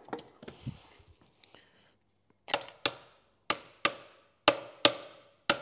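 Hammer blows on metal as a gearbox part is driven home during reassembly: light handling clicks at first, then from about two and a half seconds in, seven sharp blows in pairs about a second apart, each leaving a short metallic ring.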